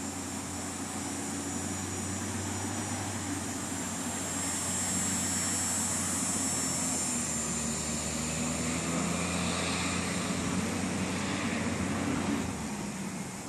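Steady engine drone with a low hum, growing louder partway through; the hum cuts off about a second before the end.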